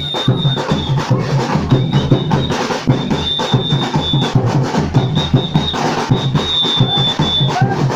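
Batucada drum ensemble playing a fast, dense samba groove, with low bass drums pulsing under rapid sharper hits. A high steady tone sounds over it in stretches of about a second, several times.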